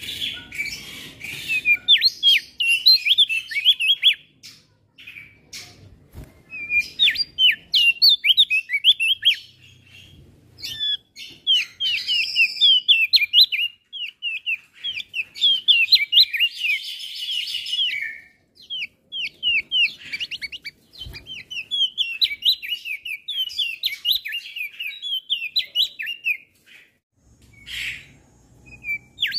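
Male opior jambul (Javan grey-throated white-eye) singing: rapid phrases of quick, high sweeping chirps broken by short pauses, with a few buzzy notes mixed in.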